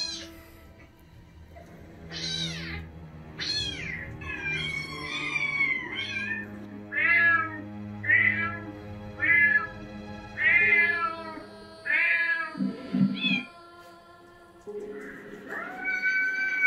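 Recorded cat meows played back from a small speaker: a series of plaintive meows about a second apart, then a longer drawn-out call near the end, over slow eerie background music.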